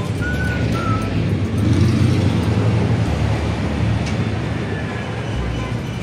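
Steady, loud rumble of road traffic, with a few short high whistle-like notes in the first second.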